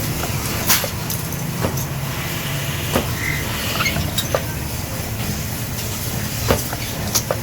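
Workshop machinery running with a steady low hum, broken by irregular sharp metal clicks and taps, about eight in all.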